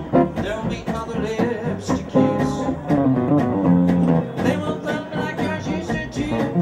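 Small jazz group playing: acoustic guitar with double bass, a melody line running above.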